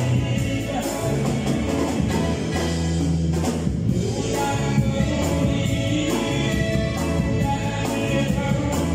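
Live band playing a song: a man singing over electric keyboard, electric guitar and a drum kit keeping a steady beat, all amplified through a PA.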